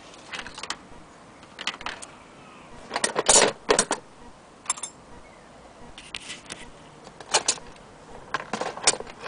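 Willcox & Gibbs single-thread chain-stitch sewing machine clattering in short, irregular bursts of metallic clicks as it is turned by hand, the loudest burst about three seconds in.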